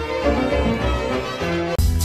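Classical music with sustained bowed-string tones, played over FM radio, cuts off abruptly near the end and gives way to louder pop music with a steady beat.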